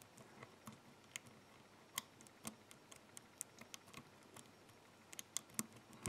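Faint, irregular metallic clicks and ticks of a dimple lock pick working the pins and keyway of a DOM five-pin dimple lock cylinder under tension during single-pin picking.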